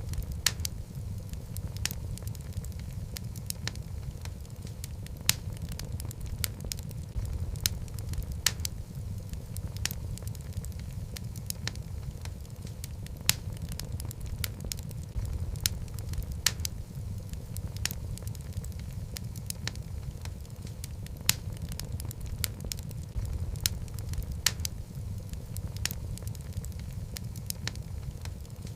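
Wood fire of burning logs in a fireplace: a steady low rumble of flame with frequent sharp, irregular crackles and pops.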